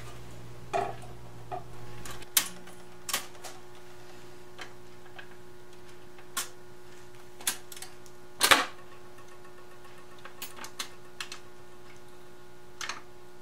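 Vintage Zenith console record changer cycling as a record starts: scattered mechanical clicks and knocks from the changer and tonearm, with one louder knock about eight and a half seconds in. Under them runs a steady hum from the console's amplifier.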